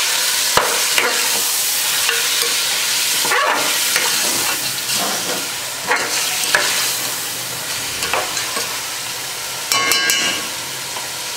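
Chicken pieces sizzling as they fry with spices in an aluminium pot, with a spatula stirring and scraping through them. The sizzle grows quieter toward the end, and a brief high ringing sound comes about ten seconds in.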